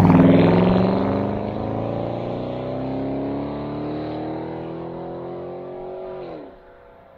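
Jaguar XK8's V8 engine as the car passes close by and pulls away down the road. The engine note rises steadily as it accelerates away, drops sharply about six seconds in, and then fades.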